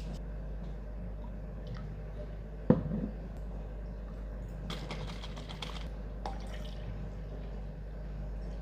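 Kitchen things being handled: one sharp knock about a third of the way in, then a patter of light clicks and taps around the middle, over a low steady background hum.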